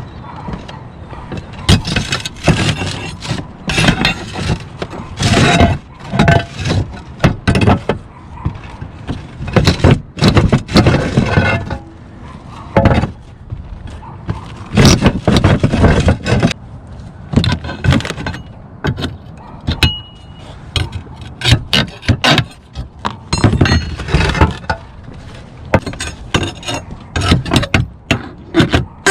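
Roof tiles clinking, knocking and scraping against each other as they are handled, in irregular clusters of clatter separated by short lulls.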